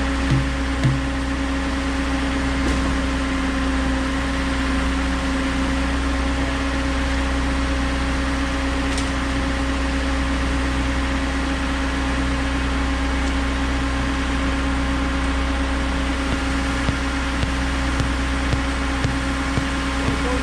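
Concrete pump truck's diesel engine running steadily, a constant drone with a steady hum. A few light knocks come about half a second in and several more near the end.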